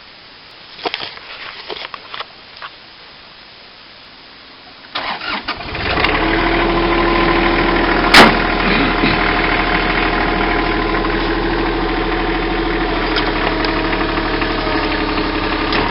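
A few light metal clinks of loose chain, then a Bobcat mini-excavator's diesel engine cranks and starts about five seconds in and settles into a steady idle, with one sharp clank about three seconds later.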